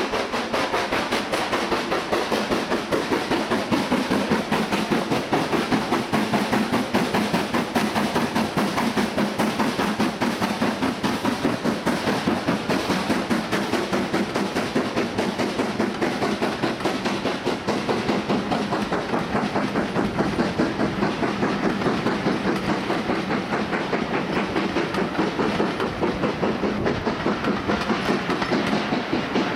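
LMS Stanier Black 5 two-cylinder 4-6-0 steam locomotive working hard up a steep bank, its exhaust beating in a steady, even rhythm, with the coaches' wheels rolling and clattering over the rails.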